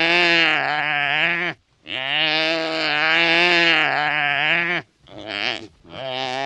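Wildebeest calling: a series of drawn-out calls on a steady low pitch with a slight waver. The second call lasts about three seconds, and a short call and another long one follow.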